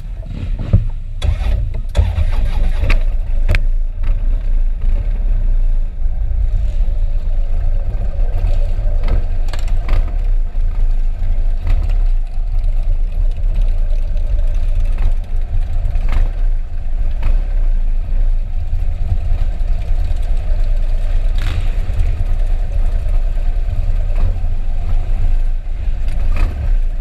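A big touring motorcycle's engine starts about half a second in, then runs with a steady low rumble. Other motorcycles in a pack idle and pull away around it.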